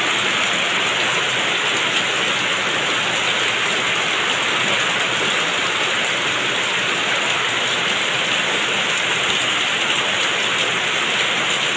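Heavy rain pouring down steadily, splashing on the ground and into basins already brimming with rainwater.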